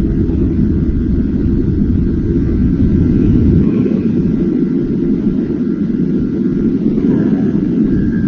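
Wind rumbling over the microphone of a motorcycle riding at speed: a loud, steady low rumble that eases slightly in its deepest part about three and a half seconds in.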